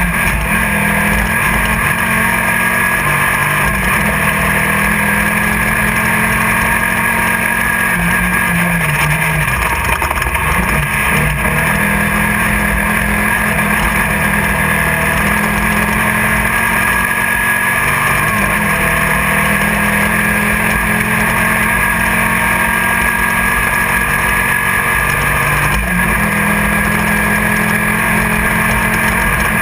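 A 1600-class off-road race car's engine running hard at sustained high revs, heard from inside the car. Its pitch dips briefly twice: about a third of the way in and again near the end.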